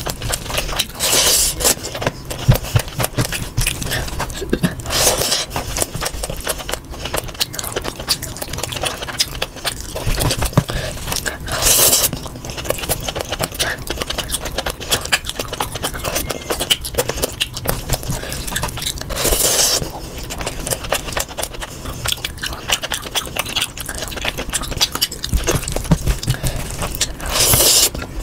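Close-miked eating sounds sped up to double speed: a hand mixing and squishing rice and mutton curry in a tray, with dense crackly chewing and mouth noises. About five louder scraping swishes come at intervals of several seconds.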